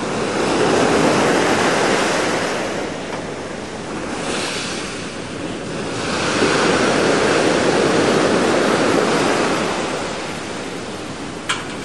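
Sea waves breaking and washing up the shore, swelling twice and easing in between, with wind buffeting the microphone. A single short click sounds near the end.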